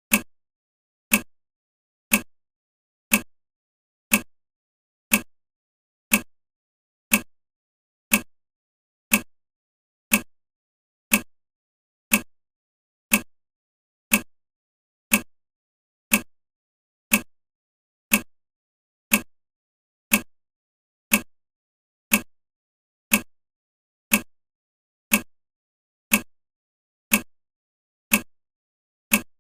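Countdown timer ticking like a clock, one short, sharp tick every second, marking off the seconds.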